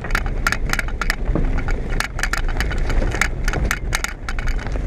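A car being driven, heard from inside the cabin: a steady low engine and road rumble, with frequent irregular clicks and rattles, several a second.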